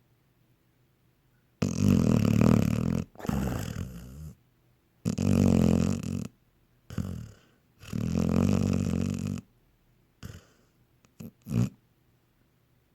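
A sleeping dog snoring: three long snores about three seconds apart, each followed by a shorter, fainter breath, then a few brief short breaths near the end.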